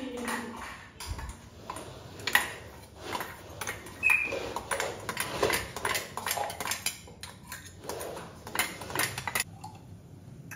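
Repeated clinks and knocks of kitchen vessels and lids being handled, with a brief metallic ping about four seconds in. The clatter stops shortly before the end.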